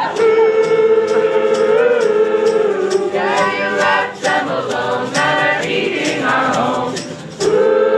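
Small group of male and female voices singing a cappella in close harmony, holding long sustained notes, with sharp percussive beats keeping time. A new loud phrase comes in near the end.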